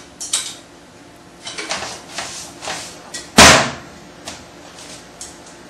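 Light knocks and rustling, then one loud slam a little past halfway through, followed by a few faint clicks.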